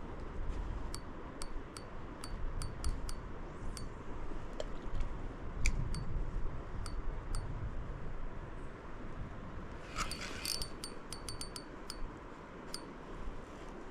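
Spinning reel's drag clicking in sharp, separate ticks as a hooked trout pulls line, with a quick run of clicks about ten seconds in. A low rumble of wind or water runs underneath.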